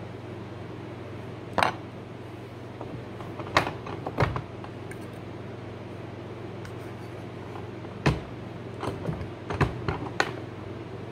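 Several sharp metallic clicks and taps, scattered irregularly, as a steel cabinet scraper clamped in a wooden holder is handled, over a steady low hum.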